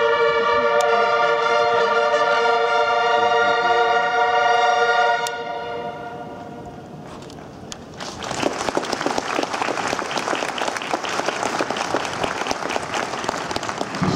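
Highland bagpipe and bugle holding the long closing notes of a tune over the pipe drones, stopping about five seconds in. After a short hush, a large crowd applauds.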